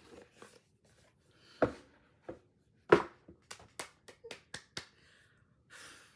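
A product box being opened and handled by hand: two sharp knocks, then a quick run of small clicks and a brief rustle of packaging near the end.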